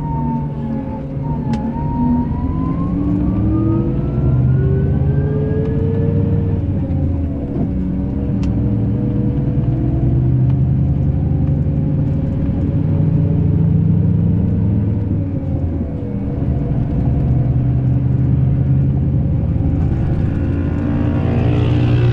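Scania K380 bus's diesel engine running, its pitch dipping and then climbing as the revs change over the first few seconds, then a steady drone. Near the end the sound grows brighter and louder in the upper range.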